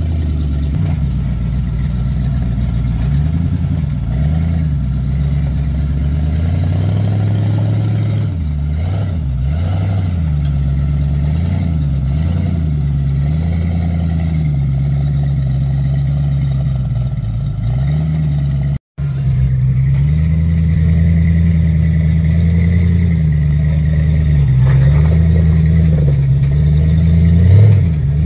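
Rock-crawler buggy's engine running under load, its revs rising and falling in slow waves as the throttle is worked over rock ledges. The sound cuts out for an instant about two-thirds of the way through.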